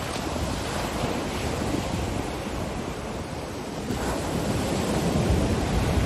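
Ocean surf breaking on a beach, with wind. A continuous wash of water noise whose low rumble swells from about four seconds in as a wave comes in.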